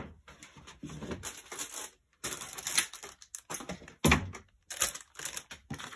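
Plastic packaging rustling and crinkling as it is handled, in irregular bursts with short pauses and a sharper knock about four seconds in.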